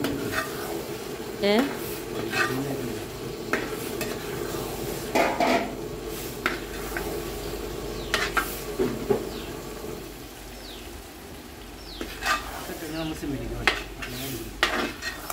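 A spoon stirring fried chicken pieces into a sizzling masala in a pan, with irregular scrapes and knocks of the utensil against the pan over a steady sizzle.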